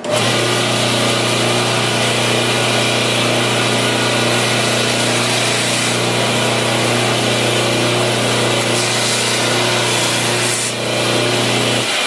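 Homemade 2x72 belt grinder starting up and running steadily, with a strong hum under a wide hiss as the abrasive belt grinds the steel knife tip to round off burrs. The sound dips briefly about ten and a half seconds in.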